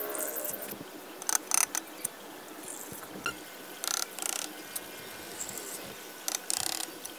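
Hand trowel scraping along the cement-rendered edge of a concrete tank as the render is finished off. It comes in short scrapes, two at a time, about every two and a half seconds.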